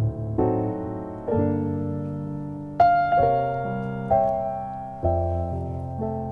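Piano playing an instrumental passage between the song's sung lines: about seven chords struck one after another, each ringing and fading before the next.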